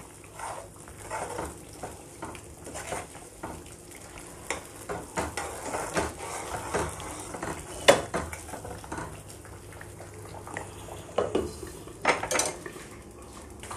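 Steel ladle scraping and clinking against a nonstick kadhai, stirring a thick spice paste as it fries in oil, with a faint sizzle. The strokes come irregularly, with a sharper clink about eight seconds in and a few more around twelve seconds.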